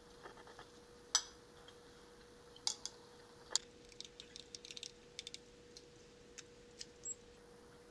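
Glass stir rod clinking and tapping against the inside of a glass beaker while a mixture is stirred: a few sharp clinks in the first seconds, a quick run of light taps about four seconds in, and a few more clinks near the end. A faint steady hum sits underneath.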